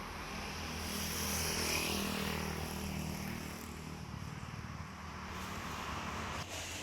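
Steady low engine hum with road noise, swelling about a second in as a vehicle goes past.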